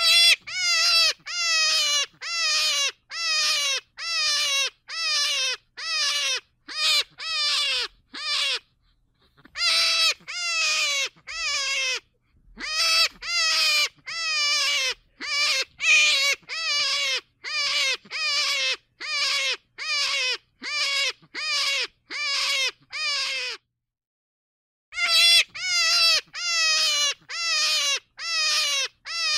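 Short animal calls, each falling in pitch, repeated steadily about twice a second in runs broken by three brief pauses.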